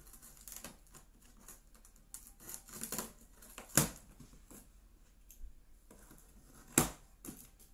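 Hands working at a large cardboard box, scratching and tapping at the cardboard and packing tape, with two sharp knocks about four and seven seconds in.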